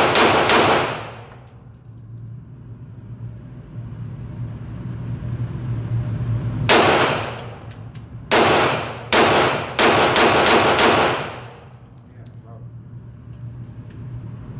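Gunfire: a few shots at the very start, then after a pause a quick string of about eight shots roughly half a second apart, each with a ringing echo. A steady low hum runs underneath.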